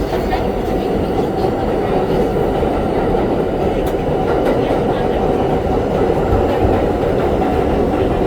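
R32 subway train running at speed through a tunnel, heard from inside the car: a steady, loud rumble of wheels on rail with rhythmic clickety-clack over the rail joints.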